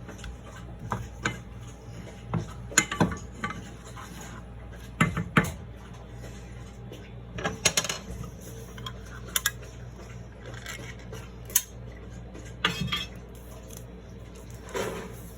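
Kitchen utensils clinking and knocking against a cooking pan, in scattered irregular strikes with a few quick double clinks.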